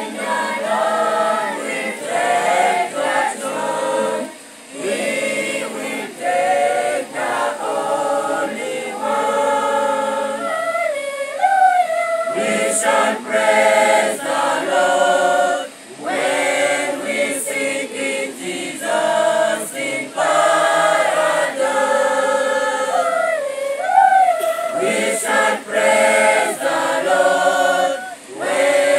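A mixed choir singing a cappella in parts, in phrases broken by brief pauses for breath.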